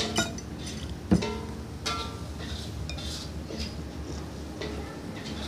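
Metal spoon clinking several times against a glass mug and a ceramic bowl, the loudest clink about a second in, over background music.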